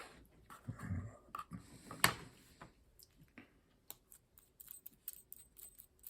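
Small metal objects being handled: a couple of soft rustles, a sharp click about two seconds in, then a run of light metallic ticks and taps near the end.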